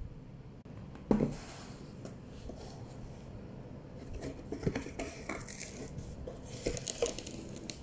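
A bowl is set down on a wooden board with one sharp knock. Near the middle, a boxed roll of food wrap is handled: a few seconds of light clicks, taps and crinkling.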